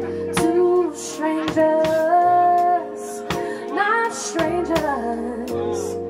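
A woman sings a melody with a live band, a drum kit keeping time with regular cymbal and drum hits beneath her voice.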